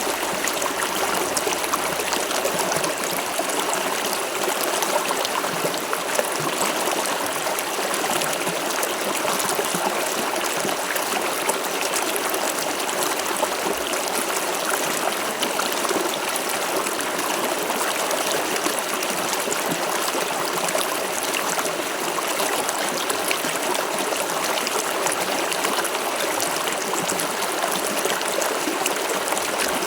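River water flowing steadily over rocks: a continuous, even rushing and babbling.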